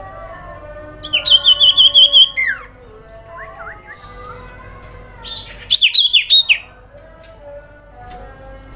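Common iora (sirpu/cipoh) singing: two bursts of rapid, high, ringing chips, each about a second long and ending in a sharp falling note, over fainter background chirping.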